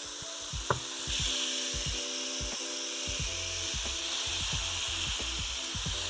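Spice-marinated chicken strips sizzling in a very hot frying pan as more pieces are added with a spatula, searing rather than steaming. The sizzle grows louder about a second in as the fresh pieces hit the pan, with a sharp tap under a second in and a few soft knocks from the spatula.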